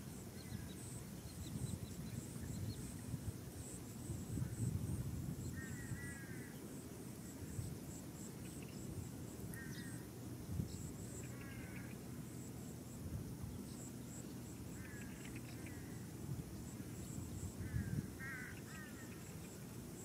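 Birds calling in short clusters of a few quick chirps every few seconds, over a steady high pulsing chirr and a low rumble.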